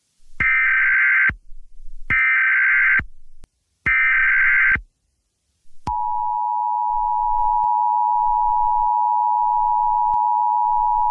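Emergency Alert System signal: three short data-burst screeches of about a second each, then a steady two-tone attention alarm that starts about six seconds in and holds.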